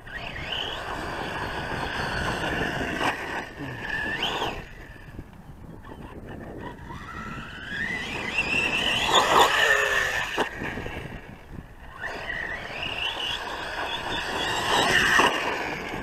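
Losi Lasernut U4 RC rock racer's electric motor and drivetrain whining, the pitch rising and falling with the throttle as it drives over loose dirt, loudest in two surges about two thirds of the way through and near the end.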